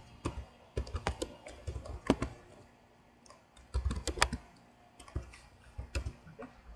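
Keys tapped on a computer keyboard in a few short runs as a word is typed, with short pauses between the runs.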